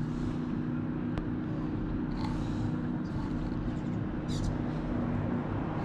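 A motor running steadily, a low drone with a constant hum, with one sharp click about a second in.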